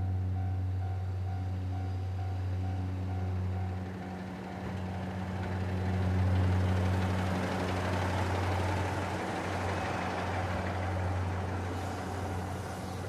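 JR Central KiYa 95 series diesel track-inspection train passing close by. Its diesel engines keep a steady low drone, and the wheel-and-rail rumble swells as the cars go past, loudest about six seconds in.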